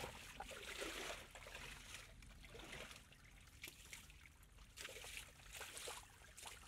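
Faint trickling of muddy water running into the mouth of a woven bamboo fish trap.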